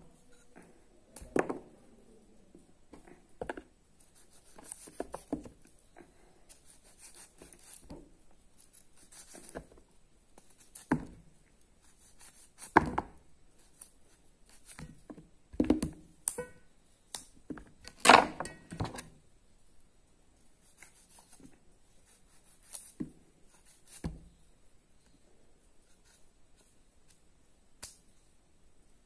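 Small knife cutting through raw green mango held in the hand: irregular knocks and clicks at uneven intervals, the loudest about two thirds of the way in.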